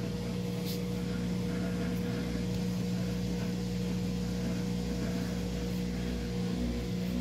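Whirlpool top-load washing machine running, a steady motor hum with a constant whine, on a load the owner describes as a little off balance.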